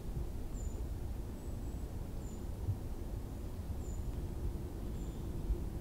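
Forest ambience: a steady low rumble, with a small bird's short, thin, high chirps about once a second.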